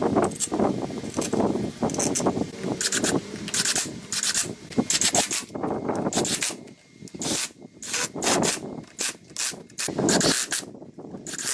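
Hand tools working on motorcycle parts: repeated rubbing and scraping strokes mixed with clicks and knocks, in irregular bursts.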